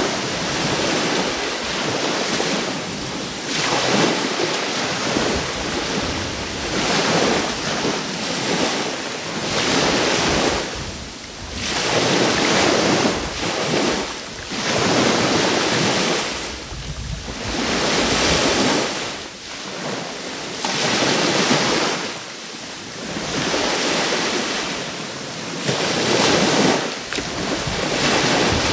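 Small sea waves breaking and washing on the shore, swelling and ebbing every two to three seconds, with wind buffeting the microphone.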